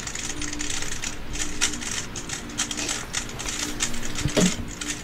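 Plastic 3x3 speedcube being handled and turned in the hands, giving a rapid, irregular run of light clicks.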